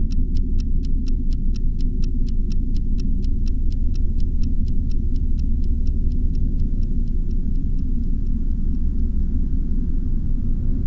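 Film score sound design: a steady low rumbling drone under a fast, even ticking like a clock, about four to five ticks a second, which fades away about eight seconds in while the drone carries on.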